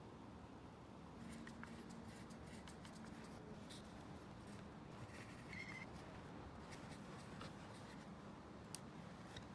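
Faint scratching and scattered small metallic clicks of a flat-blade screwdriver turning slotted screws on a cast-iron machine base.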